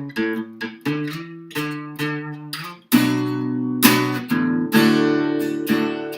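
Acoustic guitar played alone between sung verses: a run of single picked notes and chord tones, then fuller strummed chords from about halfway through.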